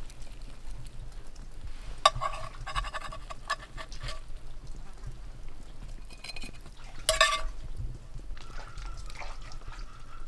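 Metal spatula scraping a cast iron skillet and knocking food onto plates, with several short clinks that ring briefly; the loudest clink comes about seven seconds in.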